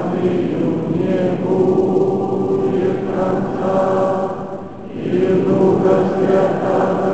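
Russian Orthodox church choir singing a liturgical chant in long sustained phrases inside a large cathedral, breaking off briefly a little past four seconds before the next phrase begins.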